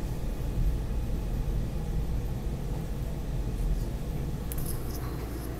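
Steady low rumble inside a SEPTA Market-Frankford Line train car running into a station, easing slightly as it slows, with a few faint high clicks near the end.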